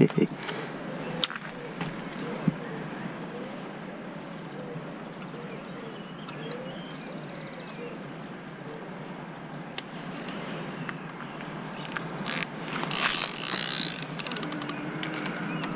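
Faint, evenly repeating insect chirping over a steady outdoor background. About twelve seconds in come a cluster of clicks and knocks as the carp rod is handled and set onto the metal rod pod.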